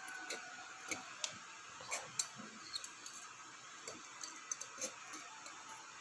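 Light, irregular metallic clicks and taps of a motorcycle piston ring being pushed by hand into the cylinder bore, to seat it for an end-gap check. The sharpest click comes just after two seconds in.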